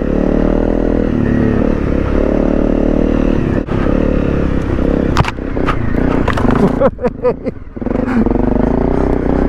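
Honda CRF250 Rally's single-cylinder engine running on a slippery trail. From about three and a half seconds in come sharp knocks and scrapes. The engine drops off the throttle briefly about seven seconds in, then picks up again.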